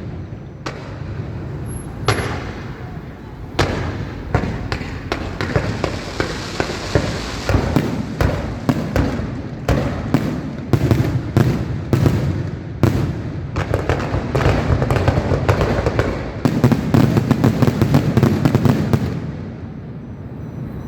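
Aerial fireworks bursting in a rapid barrage of sharp bangs with crackling in between. The bangs grow denser partway through and then stop near the end.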